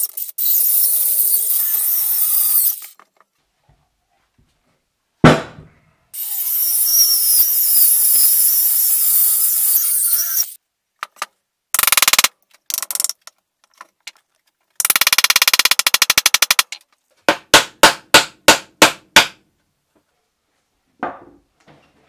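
Cordless circular saw cutting into a dry apple-wood log: two long cuts of a few seconds each with a thump between them. Then come shorter bursts, a brief buzz, and a run of about eight quick, even strokes.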